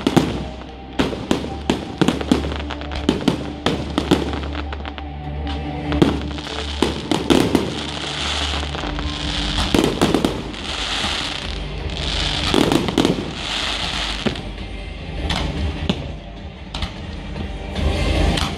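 Fireworks display: rapid bangs of bursting shells and firecracker-like reports in quick succession. About a third of the way in comes a run of crackling, hissing bursts about every second and a half, from stars that crackle as they fall. Music plays underneath.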